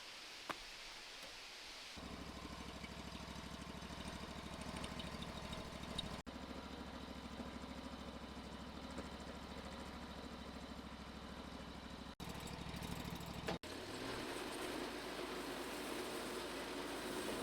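An engine running steadily at an even, low speed, which starts about two seconds in after a single click. The sound is broken by sharp cuts, and after the last one, about two-thirds of the way through, it runs at a higher pitch.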